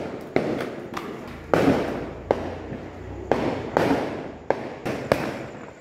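Fireworks bursting overhead: a string of sharp bangs, about seven in under six seconds, each trailing off in an echo.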